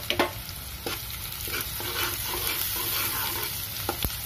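Chopped onion and whole spices sizzling in hot oil in a nonstick frying pan, with a spatula stirring and a few knocks against the pan, one near the end.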